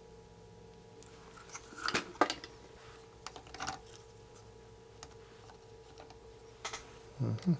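Scattered light clicks and taps of small electronic parts and hand tools handled on a workbench during kit assembly, loudest in a quick pair about two seconds in.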